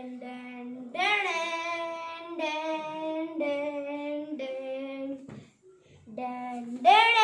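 A child singing a drawn-out fanfare of long held notes, each about a second, sliding up into each note; after a short break about five seconds in comes a final note, the loudest and highest.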